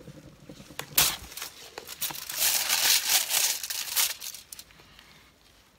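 Crinkling and handling noise, with a few light knocks about a second in, as the small painted canvas is lifted off the foil-covered spinner in plastic-gloved hands. The crackly crinkling is loudest in the middle and dies away near the end.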